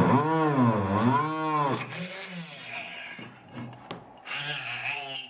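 Homemade mini drill's small DC motor whining under load, its pitch dipping and recovering twice in the first two seconds as it bogs down against the work, then a quieter wavering run near the end.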